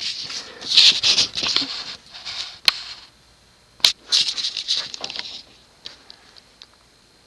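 Irregular rustling with two sharp clicks about a second apart, then it goes quiet except for a few faint ticks.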